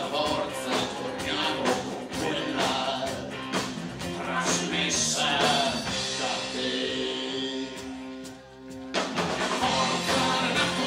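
Live rock band playing with a male singer: drums, electric bass and keyboard. About six seconds in, the drums drop out under held notes, and the full band comes back in at about nine seconds.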